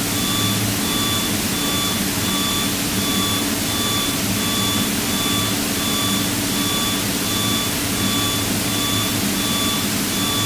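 Steady cabin drone of the Piper PA-32's piston engine and propeller in cruise. Over it, a short electronic beep repeats about once a second.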